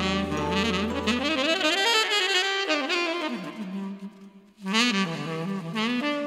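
Saxophone playing a melody with vibrato, in a jazz style, over a low sustained backing note that drops out about two seconds in. A brief break about four and a half seconds in, then a last phrase.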